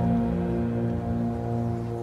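Marching band holding a sustained chord that slowly fades down toward the end.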